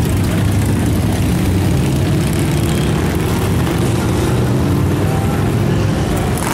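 Motorcycle engines rumbling steadily as several touring and cruiser bikes ride slowly past.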